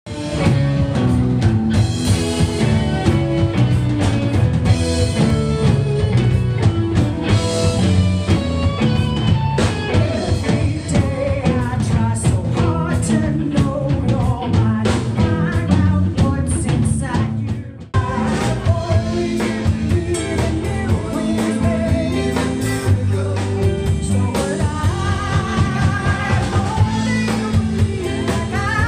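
Live rock band playing, with singing, electric guitars and drums. About 18 seconds in the sound cuts out for an instant and a different passage of music starts.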